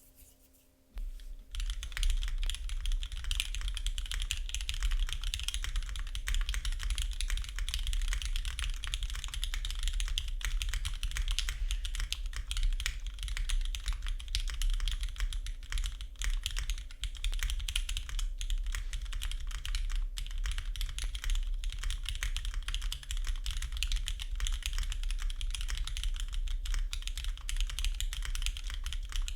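Continuous fast typing on a custom 60% mechanical keyboard: lubed Cherry MX Black linear switches on an aluminium plate under GMK keycaps, giving a clacky, high-pitched sound. The typing starts about a second and a half in.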